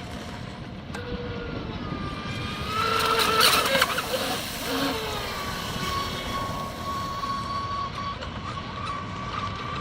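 HK Pursuit RC speedboat's brushless electric motor running on 5S with an X440/3 CNC propeller: a high whine that wavers in pitch. It climbs and is loudest, with a rushing hiss, about three to four seconds in, then settles to a steadier tone.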